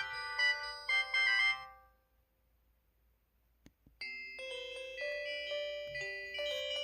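Polyphonic bell-like alert melodies from an MS500 mobile phone: one info-alert tune plays and fades out about two seconds in, and after a short gap with a faint click, the next alert tune starts at about four seconds.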